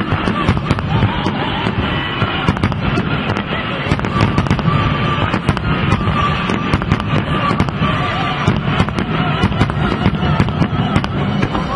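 Fireworks display: aerial shells and ground fountains bursting, a dense, irregular run of sharp bangs and crackles with music underneath.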